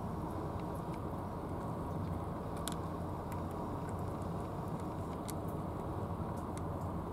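Cat eating from a dish, its chewing on kibble making scattered small clicks and crunches, two of them sharper, about two and a half and five seconds in. A steady low rumble of background noise runs underneath.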